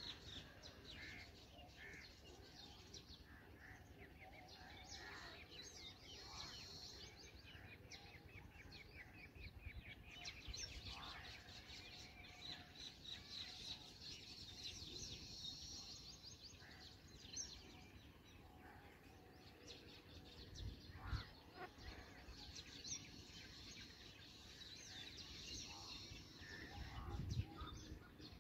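Faint, high-pitched bird chirping and twittering, many rapid chirps over a steady outdoor background, with a few low thumps near the end.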